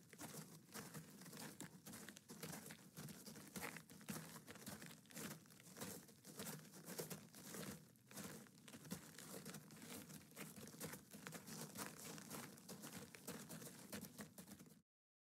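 Faint footsteps crunching on a gravel path at a walking pace, with small rustles. The sound cuts off suddenly near the end.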